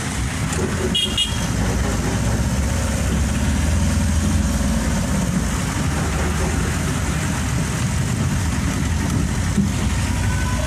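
Steady traffic and engine rumble heard from inside a moving vehicle on a wet road, with a brief high horn toot about a second in.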